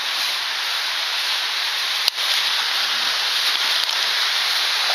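Steady rush of whitewater from a stream cascade, with a single sharp click about two seconds in.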